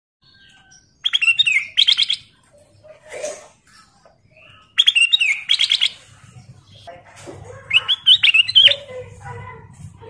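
Kutilang emas (ruby-throated bulbul) singing: three loud bursts of quick, liquid whistled notes, about a second in, near the middle and about eight seconds in, with softer lower calls between them.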